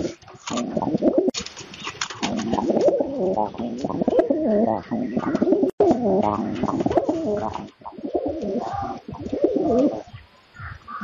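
Domestic pigeons cooing almost continuously, with sharp clicks of beaks pecking grain from a steel plate. The cooing breaks off briefly near the end.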